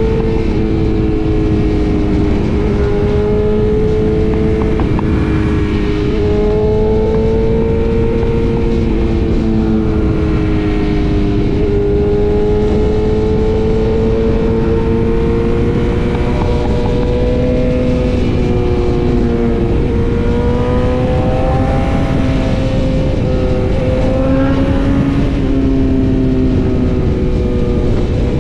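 BMW S1000RR's inline-four engine running at steady highway cruising speed, its pitch drifting gently up and down with small throttle changes, under a heavy rush of wind.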